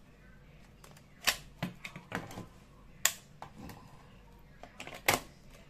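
Sharp plastic clicks from a switch socket outlet and a plug-in socket tester being switched and handled during testing: three loud clicks about two seconds apart, with softer knocks between.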